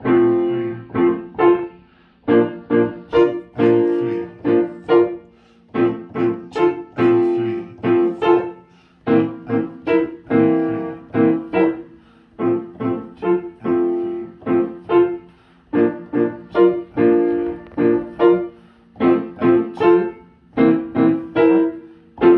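Upright piano played in a rhythmic, detached style: short chords and notes struck in quick groups, phrases about three seconds long with brief pauses between them.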